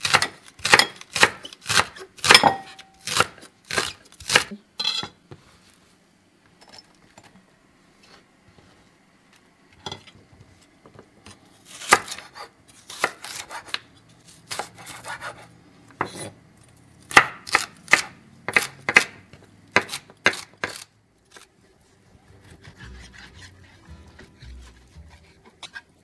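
A chef's knife chopping leeks and then celery on a wooden cutting board: rapid sharp knocks of the blade through the vegetable onto the board, in two runs with a sparse pause between. Faint music comes in near the end.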